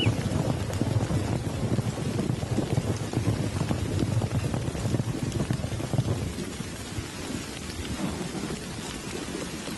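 Heavy rain pouring down through a thunderstorm, with a low rolling rumble of thunder that eases after about six seconds while the rain keeps falling.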